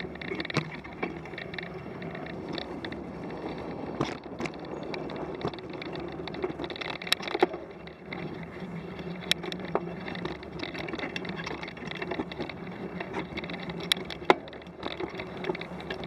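Bicycle riding along a snow-dusted dirt trail: steady rolling noise of the tyres and drivetrain, with scattered sharp clicks and knocks as the bike goes over bumps.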